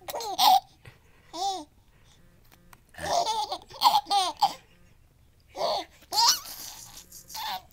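Baby giggling and babbling in a string of short, high-pitched bursts.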